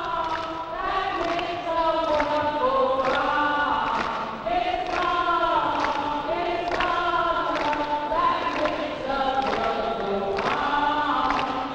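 A choir singing in several parts, holding long notes that change pitch about every second.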